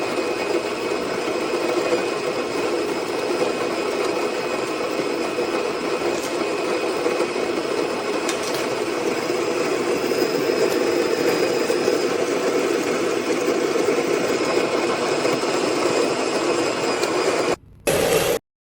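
Electric burr coffee grinder running, grinding beans: a steady motor whir with a gritty rasp. It cuts out suddenly near the end.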